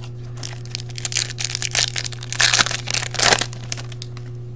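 Foil wrapper of a 2015 Topps Valor Football card pack being torn open and crinkled by hand: a run of crackling rustles, loudest between about two and a half and three and a half seconds in, over a steady low hum.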